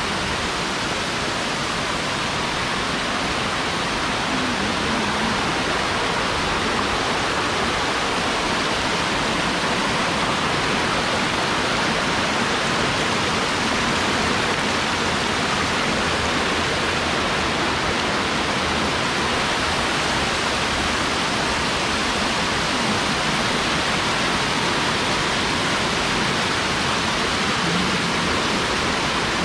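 Steady rushing of falling water from Twin Falls and a small stream spilling over mossy rocks: an even, unbroken wash of water noise.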